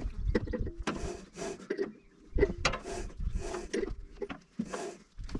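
Irregular clicks, knocks and light rattles of metal parts being handled on a portable band sawmill's blade housing.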